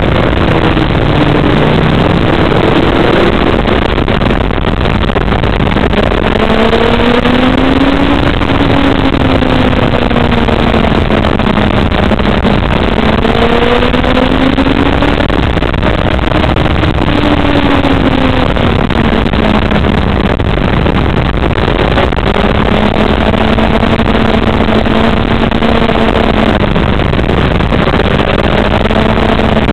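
Sportbike engine heard from on board the bike, its pitch rising and falling several times through the bends and holding steady for a few seconds near the end, under a loud rush of wind noise.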